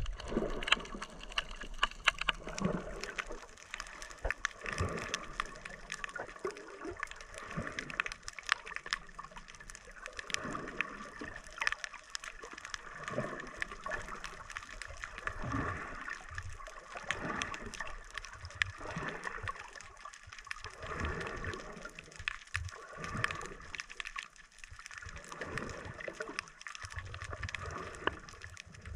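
Water recorded underwater by a camera in its housing: muffled gurgling and sloshing that swells irregularly every second or two, with many small clicks throughout.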